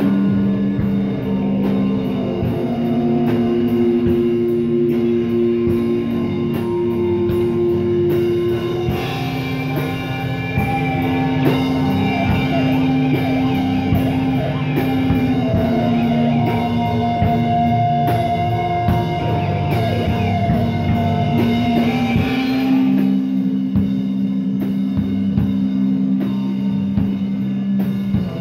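Live rock band playing: electric guitar holding long droning notes that change about every six seconds, over a steady drum kit beat.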